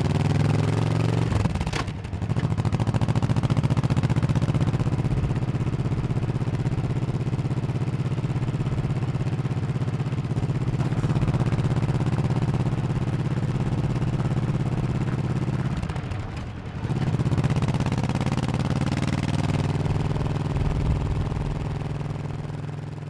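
1100cc motorcycle engine running under way at a steady pace, with two short drops in the note, about two seconds in and about sixteen seconds in, after which it picks up again. The engine grows quieter over the last few seconds.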